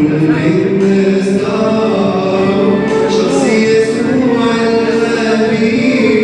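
Mixed choir of men and women singing a Coptic hymn, amplified through microphones, with long held notes that waver in pitch.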